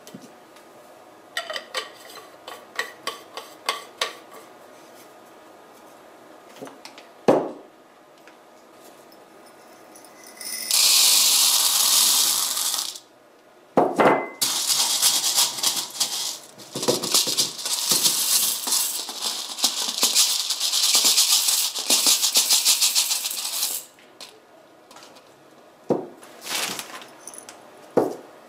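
Small mineralized ceramic balls poured through a plastic funnel into a clear plastic inline filter cartridge, rattling and clattering in two long runs. Scattered clicks and a couple of knocks come from handling the cartridge and funnel.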